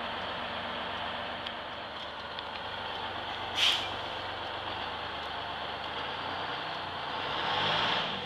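GMC New Look transit bus's diesel engine running as the bus creeps along, with a short sharp hiss of air about three and a half seconds in. Near the end the engine swells louder and rises in pitch.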